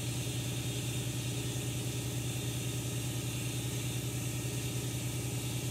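Shop air compressor running: a steady low hum with a fast, even pulsing.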